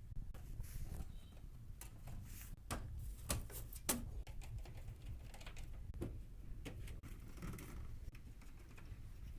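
Scattered clicks and light taps of PC parts being handled during assembly, irregular and a few seconds apart, over a low steady hum.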